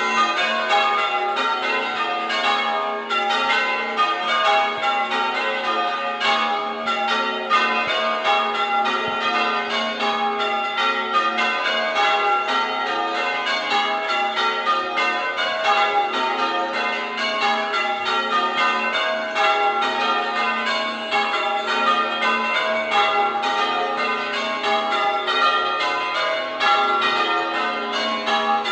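Church bells ringing in a rapid, unbroken sequence of strikes at several different pitches, each note ringing on into the next.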